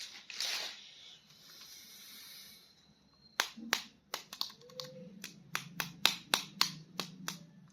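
Plastic action figure being handled: a brief rustle, then a run of sharp plastic clicks, about three a second, over the second half.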